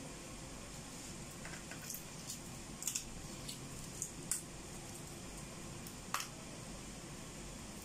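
Hard-boiled egg being peeled by hand: a scatter of small, sharp crackles and clicks as the shell cracks and comes away, easy to peel after a soak in cold water. Steady low background noise underneath.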